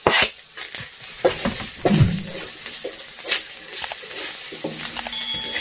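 Minced garlic scraped off a cutting board into hot oil and sizzling in an enamel wok, with a wooden spatula stirring and tapping against the pan.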